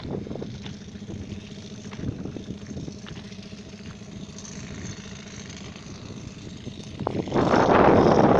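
Engine of a road construction machine running steadily at a low, even pitch. From about seven seconds in, a loud rush of wind on the microphone covers it.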